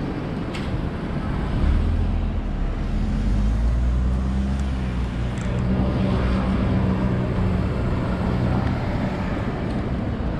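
A motor vehicle's engine running close by, a low steady hum that sets in about two seconds in and eases near the end, over general traffic noise.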